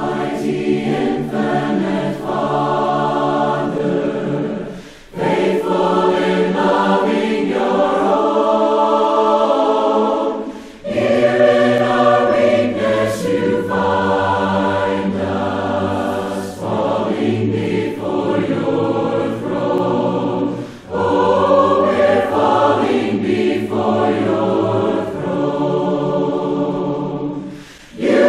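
A church congregation singing a hymn a cappella in four-part harmony. The phrases are separated by short breaths.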